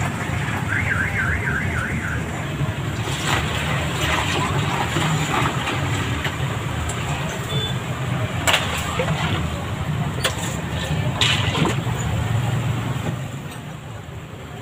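Steady low rumble of street traffic, with a short warbling alarm tone, rising and falling about four times a second, near the start. Later come a few sharp plastic clacks as drink is ladled from plastic tubs into cups.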